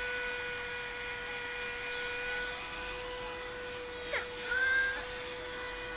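Bed Head Curls in Check 1875-watt diffuser hair dryer running steadily on its low setting, a constant high motor whine. About four seconds in, a young child gives a brief whimpering cry.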